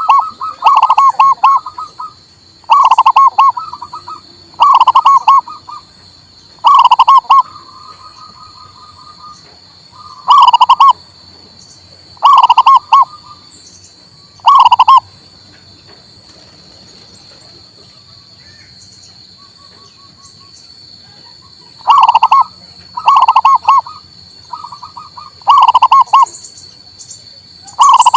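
Male zebra dove (perkutut) cooing: short, loud rolling coo phrases repeated about every two seconds, pausing for several seconds midway. A faint steady high whine runs behind it.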